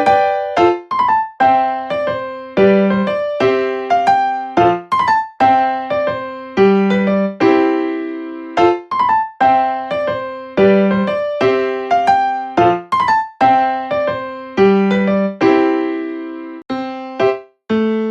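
Background music: an electric piano playing a light, bouncy melody with chords, each note struck and fading.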